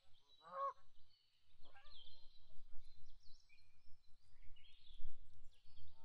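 Canada geese honk briefly, twice in the first two seconds, then small birds chirp and twitter in quick, high calls over a low rumble.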